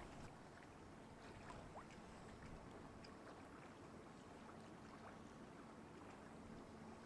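Near silence: faint outdoor ambience, with a faint steady low hum that grows a little stronger about halfway through.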